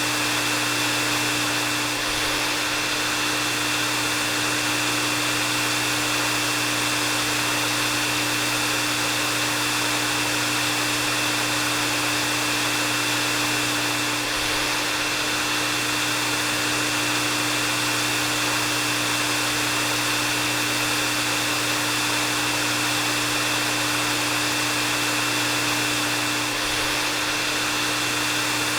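Hair dryer running steadily on one setting: an even hiss of blown air with a steady low hum and a thin high whine on top.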